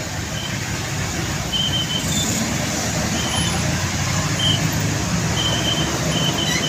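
Heavy truck's diesel engine running at low speed amid road traffic, growing a little louder about two seconds in. Short high chirps come and go over it.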